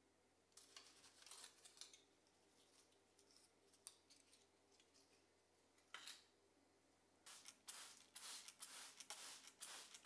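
Faint short sprays from a hand spray bottle misting a potted citrus tree's leaves. There are a few sprays early on, one about six seconds in, then a quick run of them from about seven seconds in.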